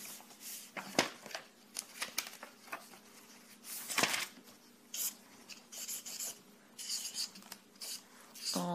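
Pen scratching and paper rustling as someone writes on paper, in scattered short swishes and small clicks. A low, steady hummed voice note starts near the end.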